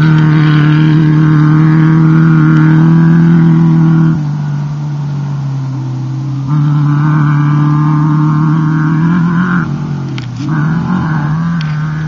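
Off-road desert race car engine running loud at a fairly steady pitch. It eases off about four seconds in, picks up again a couple of seconds later, and near the end gives short revs that rise in pitch.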